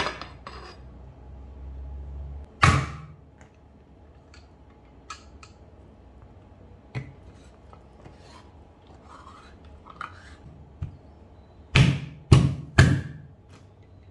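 Hand-held lever tin opener working on metal tins: a heavy thunk about three seconds in, scattered light clicks and scrapes of the blade on the lids, then three sharp knocks in quick succession near the end as the blade is driven into a tin lid.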